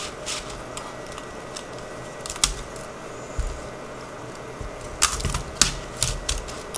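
Scattered plastic clicks and clatter from a Dell Latitude D630 keyboard being lifted out and handled, with a quick run of sharper clicks about five seconds in.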